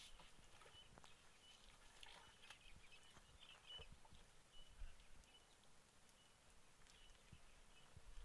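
Near silence: faint outdoor ambience with short, high chirps recurring every second or so and a few soft knocks.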